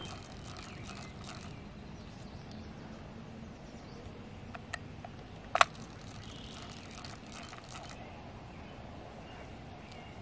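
Quiet lakeside background: a steady low outdoor hiss and rumble. There is a faint click about halfway through, then a louder, sharp double click just after it.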